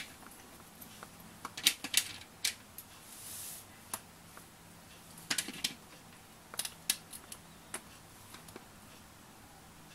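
Irregular sharp clicks and taps of LEGO plastic pieces being handled, coming in small clusters with a brief soft rustle about three seconds in, and thinning out over the last two seconds.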